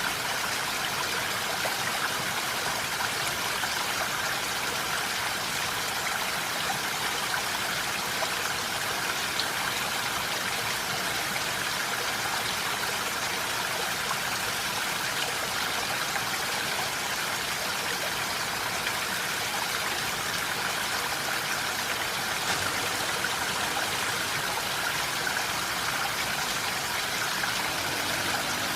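Steady rain: an even, unbroken hiss of many drops, with faint ticks of single drops through it.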